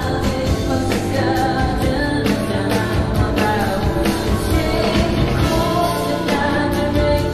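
Live rock song performance: a woman singing lead over a full band with a steady beat.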